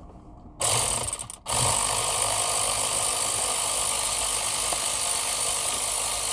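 Cordless power tool with a 10 mm socket spinning out the driver's airbag bolts: a short run, a brief stop, then a steady run that continues to the end.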